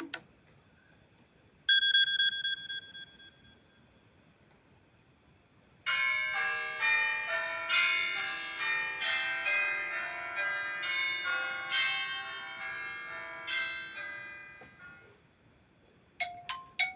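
iPhone 7 Plus built-in ringtones and alert tones played in turn. A single bell-like ding comes about two seconds in and rings out. From about six seconds in, a chiming melody of many quick bell-like notes lasts about nine seconds, and a new run of short, quick high notes starts near the end.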